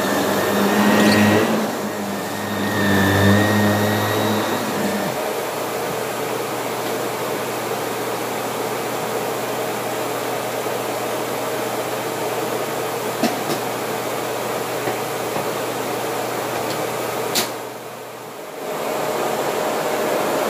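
Shark Navigator upright vacuum cleaner running steadily. Near the end a click is followed by a drop in the sound for about a second before it comes back up.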